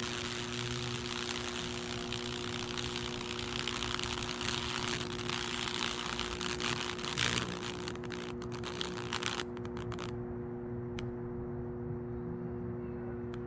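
High-voltage electric arc of a fractal wood burn, crackling and sizzling as it burns through baking-soda-soaked oak. It runs for about seven seconds, then sputters a few times and cuts out about ten seconds in. A steady electrical hum runs underneath.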